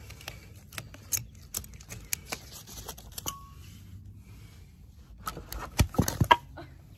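Ratchet strap buckle being worked open with a run of small clicks, then a cluster of louder knocks about five to six seconds in as the strap comes free and the glued 2x4 boards of the bench leg shift apart: the wood-glue joint has failed.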